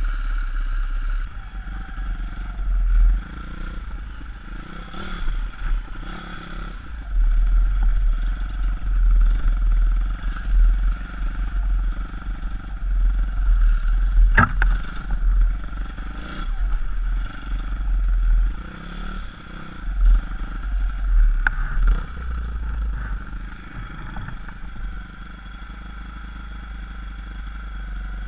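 160cc pit bike engine revving up and down while riding over a rough dirt track, with wind rumbling on the helmet microphone. Two sharp knocks come from the bike jolting over bumps, about halfway through and again about three-quarters through.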